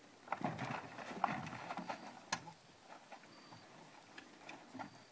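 Plastic buckets, milk jugs and feed sacks full of cans knocking and rattling on a walking horse's saddle, a noisy load hung on a green horse to desensitize it. The clatter is loudest over the first two and a half seconds, with a sharp knock about two seconds in, then it thins to scattered knocks.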